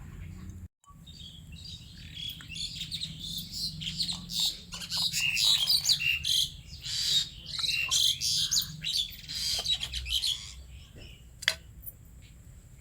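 Small birds chirping rapidly in a dense, overlapping flurry that thins out after about ten seconds.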